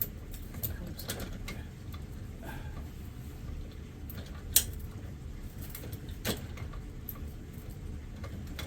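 A few sharp metallic clicks and clinks of a chain hoist's hook and chain being handled, the loudest about four and a half seconds in, over a low steady rumble.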